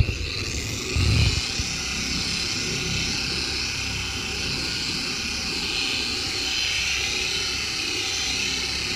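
Electric dual-action polisher running steadily with its foam pad on a car's hood, spreading all-in-one compound across the paint. There is a low thump about a second in.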